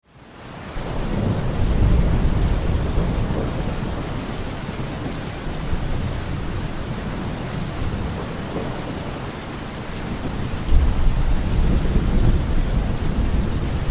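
Thunderstorm: steady heavy rain with rolling thunder. The rumble swells in over the first second or two and eases, then a louder thunderclap breaks in about eleven seconds in and rumbles on.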